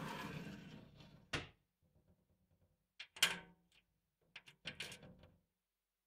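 Glass vitrine door shutting: a scraping slide that ends in a sharp knock, then a louder knock with a short glassy ring a couple of seconds later and a few small clinks and clicks of the door settling.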